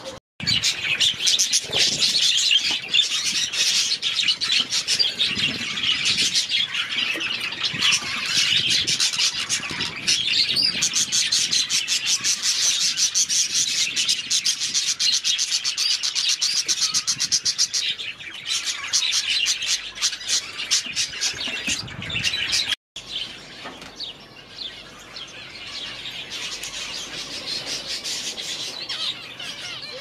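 A flock of small aviary birds chirping and chattering without pause in a dense, high-pitched twitter. The sound cuts out abruptly just after the start and again about 23 seconds in, and is quieter after the second cut.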